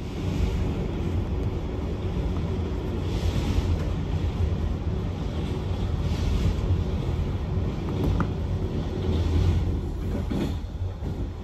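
Passenger coach of a loco-hauled train running over a steel bridge: a steady low rumble of wheels on the rails, with swells of hiss every few seconds.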